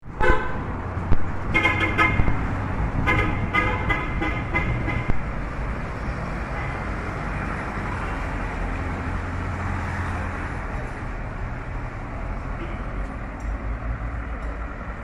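Vehicle horn sounding in several short toots during the first five seconds, over steady road-traffic noise that carries on afterwards.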